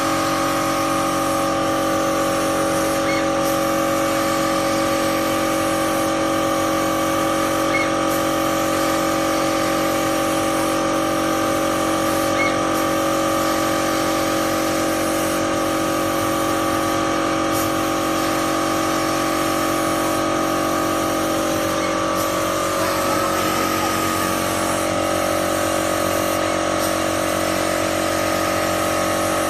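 Automatic pattern sewing machine with a laser head running while it stitches pocket flaps held in a template frame: a steady mechanical hum with several held tones, its upper tone shifting slightly about three quarters of the way through.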